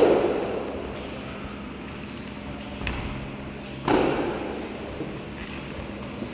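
Two heavy thuds during a longsword drill, one at the start and one about four seconds in, each echoing on in the large hall, with a faint knock between them.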